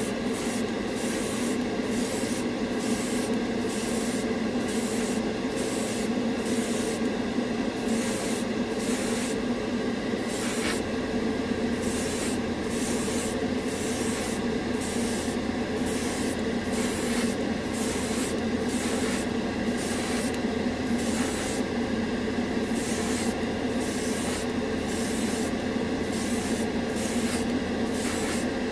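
Airbrush spraying solvent-based lacquer paint in short passes, its hiss of air and paint starting and stopping about once a second, over the steady hum of a spray booth's extractor fan. A deeper low hum comes in about ten seconds in.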